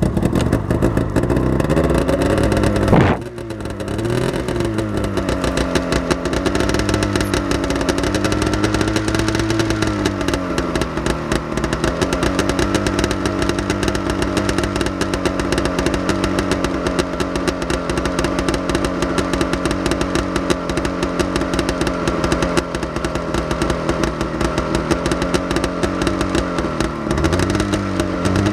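Arctic Cat 440 Snow Pro snowmobile's two-stroke engine running just after a cold start, its pitch rising and falling unevenly for about the first ten seconds with a brief surge about three seconds in, then holding steady at idle, with the revs wavering again near the end.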